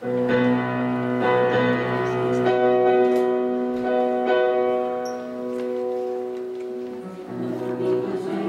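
Grand piano playing a slow introduction of held chords that change every second or two.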